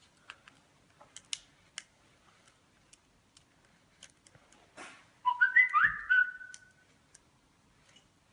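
Faint scattered clicks of small parts being handled as flex cables are pressed onto the iPhone 5's board connectors. About five seconds in comes the loudest sound, a short whistle of several quick notes stepping up in pitch, lasting about a second and a half.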